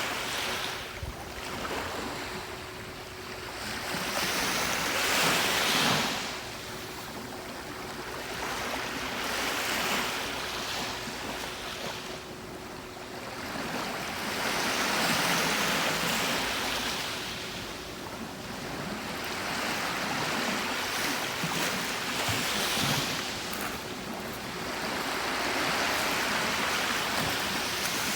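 Gentle sea waves breaking and washing up a beach, the surf swelling and fading about every five seconds.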